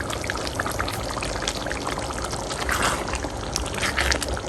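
Capsicum gravy simmering in a kadai: steady bubbling with irregular small pops and crackles.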